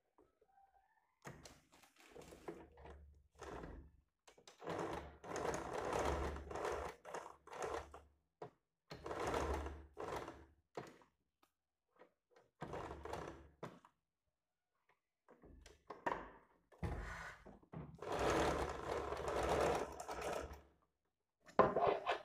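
Sewing machine stitching fabric in several short runs of one to four seconds each, with brief pauses between them.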